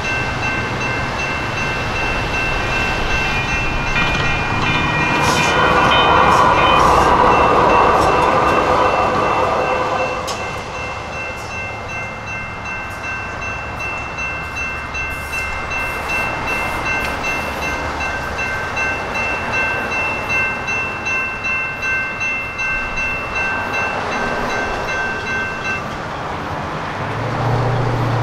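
A grade crossing's General Signals Type 2 electronic bell rings steadily with the gates down, while a Siemens Duewag U2A light rail train rushes past, loudest a few seconds in. The bell stops about two seconds before the end as the gates clear, and a low hum starts.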